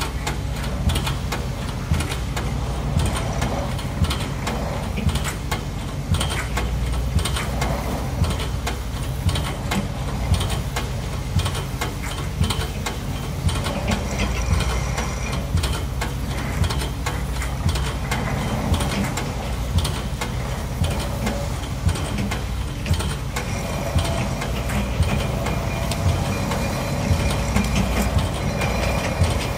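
Piling rig's hammer striking a pile in a steady rhythm, roughly one blow a second, over the steady running of a diesel engine.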